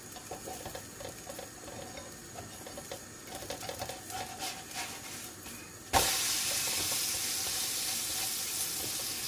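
Puff pastry frying in a mix of butter and oil in a frying pan, a faint sizzle with small crackles. About six seconds in it is flipped over with a spatula, landing with a knock, and the sizzle jumps much louder as the raw side meets the hot fat.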